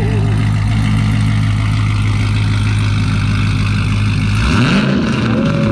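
Car engine idling with a steady low note; about four and a half seconds in it revs, its pitch sweeping upward, and a steady higher tone joins near the end.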